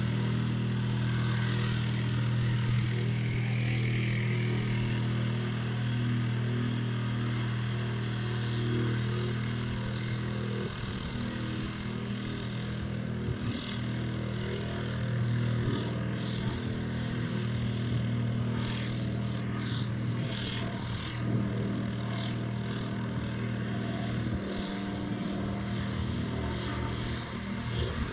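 Steady motor hum made of several close pitches held level, with a few faint clicks from about ten seconds in.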